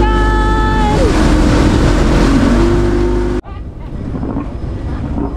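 Motorboat under way: a loud engine with wind and water noise, and a person's drawn-out, held call over it for the first three seconds. The sound cuts off sharply about three and a half seconds in, giving way to a quieter motorboat running.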